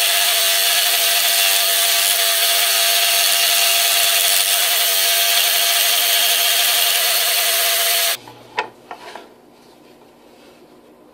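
Scroll saw running and cutting through 3/8 inch cherry with a steady, hissy buzz, stopping abruptly about eight seconds in. A few light knocks follow, then quiet.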